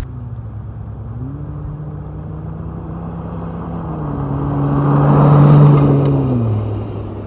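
Jeep Wrangler JL with a muffler-delete exhaust and an added second resonator, accelerating past. The engine note steps up in pitch about a second in and again around four seconds in, grows loudest about five and a half seconds in as it goes by, then drops away near the end.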